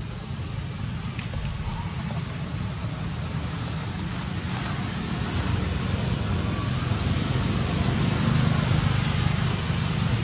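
Steady outdoor ambience: a constant high-pitched drone over a low rumble, slightly louder near the end, with no distinct calls or knocks.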